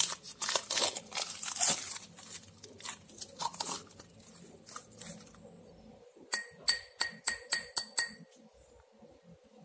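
Plastic shrink wrap crinkling as it is pulled off a stack of opalware (opal glass) bowls. Later come about seven quick ringing clinks, roughly four a second, as the glass bowls knock against each other.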